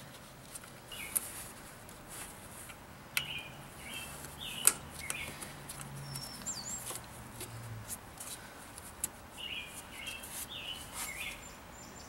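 A few sharp clicks and light rattles as the throttle cable end is worked onto the throttle pulley of a 1998 Volvo V70 engine, with birds chirping in the background in two short spells.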